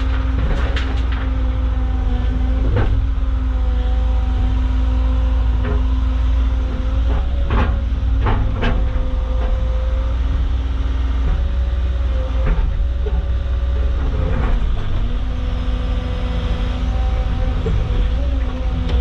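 Cat mini excavator's diesel engine running steadily under hydraulic load, its tone wavering slightly as the boom and bucket work. Rocks knock and clank against the bucket several times, most strongly about eight seconds in.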